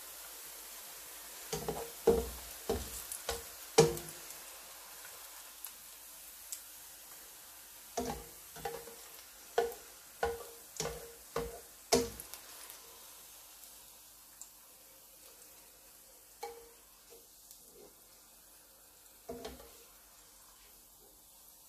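Slotted spatula scraping and knocking against a nonstick frying pan as fried onions are lifted out of hot oil, in two quick runs of sharp knocks and then a few single taps, over a faint sizzle.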